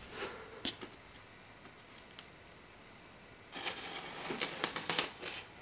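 Knife slicing through packing tape on a cardboard box: a few light clicks of the blade on the box, then, past the middle, a scratchy, crackling rip of rapid clicks lasting about two seconds as the tape is cut.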